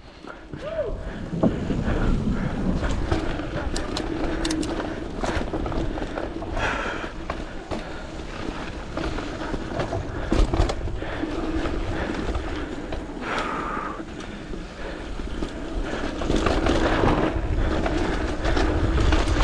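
Mountain bike rolling fast down a trail over dirt and wooden boards: steady tyre noise with frequent knocks and rattles from the bike.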